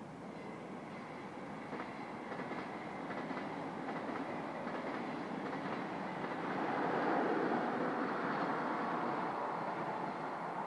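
SBB double-deck passenger train with a red electric locomotive passing, its wheels clicking over the rail joints. The rolling noise builds, is loudest about seven seconds in, then eases as the train goes by.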